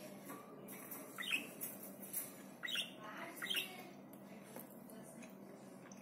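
Budgerigar giving several short, harsh squawks that sweep down in pitch, aggressive threat calls at a hand held close to it. The loudest come about one, three and three and a half seconds in.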